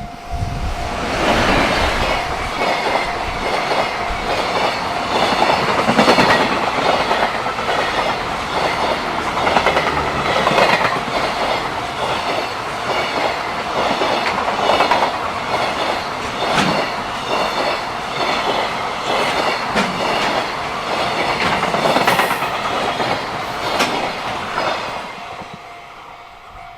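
Japanese freight train rolling past, its wagon wheels clacking steadily over the rail joints. The sound fades away near the end as the last wagons pass.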